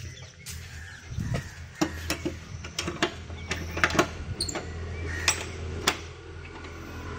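Key and metal door lock of a wooden double door being worked open: a run of sharp clicks and rattles, loudest around the middle, over a low steady hum.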